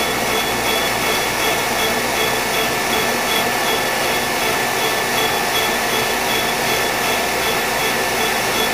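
Dainichi MG75 CNC lathe running under power: a steady mechanical hum with several steady tones and a high whine that pulses evenly about three times a second.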